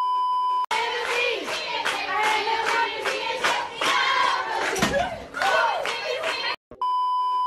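A steady test-pattern beep for about a second, then a group clapping in a steady rhythm while voices shout and sing along. The same beep returns near the end.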